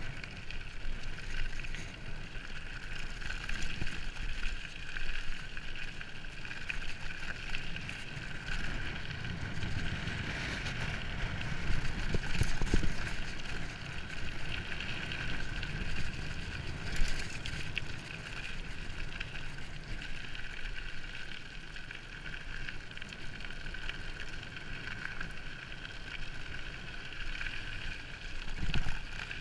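Wind rushing over the microphone and mountain-bike tyres rolling fast on a rough road, a continuous rumble with a steady hiss, broken by a few louder jolts from bumps about the middle.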